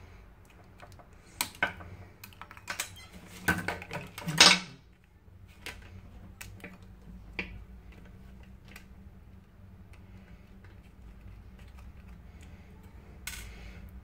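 Small clicks and clatters of a hex driver and tiny screws against a quadcopter's carbon-fibre frame as one arm is taken apart. A cluster of sharp clicks comes in the first few seconds, the loudest about four and a half seconds in, then only sparse faint ticks and a short rustle near the end.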